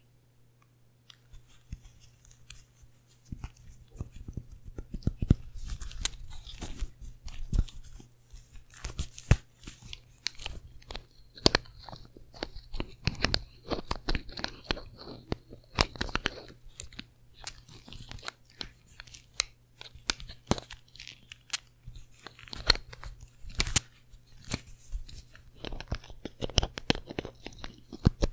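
A glass Burberry perfume bottle and its cap handled close to a microphone: irregular taps, clicks and scratching of nails and cap on the glass. The sounds start about a second in, over a faint low hum.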